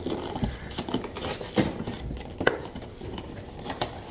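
Cardboard and plastic packaging of a Pokémon card collection box being handled and opened: irregular rustling broken by several sharp clicks and snaps.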